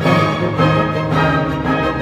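Orchestral music led by strings, with held notes.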